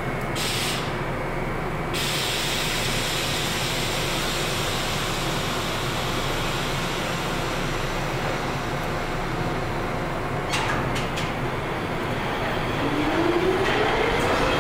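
R62 subway train standing in the station with a steady hum, then a few short clicks about ten seconds in. Near the end its traction motors start a rising whine as it pulls away, getting louder.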